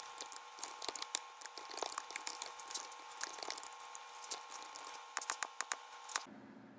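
Faint typing on a computer keyboard: irregular key clicks that stop about six seconds in, over a faint steady hum.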